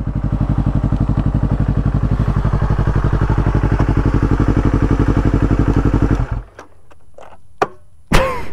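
Motorcycle engine idling with an even pulse, then switched off about six seconds in so that it stops abruptly. Near the end, a light click and then a sharp slap of a hand on the bike's fuel tank.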